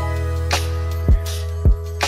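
Background music with a deep, sustained bass, kick-drum thumps and sharp percussive hits.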